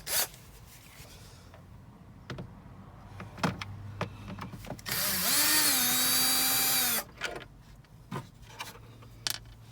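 A cordless drill-driver spins up and runs steadily for about two seconds, backing out a screw from the mounting of a charger unit being removed. A few light knocks and clicks of handling come before and after.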